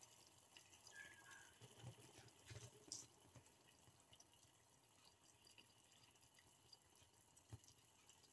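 Water boiling in a pan, heard faintly: soft bubbling with scattered small pops, several between about two and three seconds in and another near the end.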